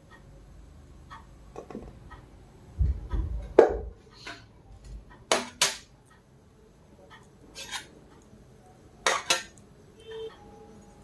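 Scattered clinks and knocks of dishes and cutlery during a meal. There is a low thump about three seconds in, and the loudest clinks come in pairs around the middle and near the end.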